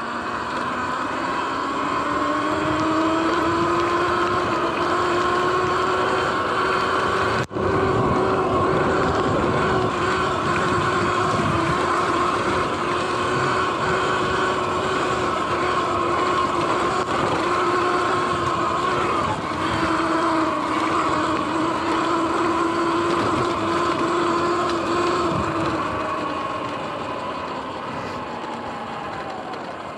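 Sur-Ron X electric dirt bike under way across grass: a steady high motor whine that rises in pitch over the first few seconds as the bike speeds up, over wind and tyre noise. The whine drops out for an instant about seven seconds in and fades away near the end as the bike slows.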